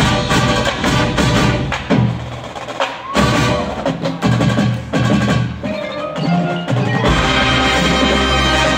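Marching band playing its field show, led here by percussion: sharp hits and ringing mallet instruments from the front ensemble. About seven seconds in, the sound fills out into a steadier, held passage with deep bass.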